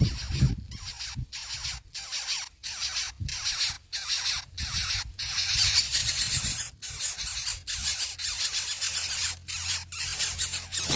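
Nestling birds begging: a run of hissing, high-pitched squeals repeating about three times every two seconds, with a low rumble underneath.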